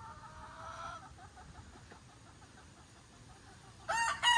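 Chickens calling, with a drawn-out call in the first second, then faint. A person's voice starts near the end.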